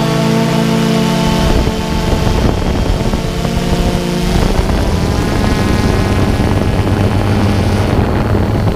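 A multirotor camera drone's propellers whirring, with wind rushing over the microphone. A steady held tone stops about a second and a half in.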